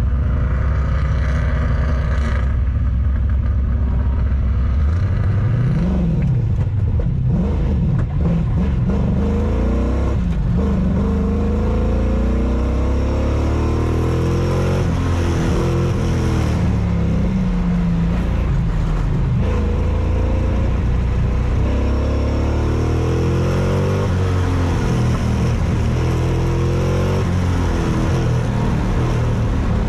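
Car engine running steadily at low revs, then from about five seconds in revving up and down again and again, its pitch rising and falling every second or two as the car is driven hard through a course.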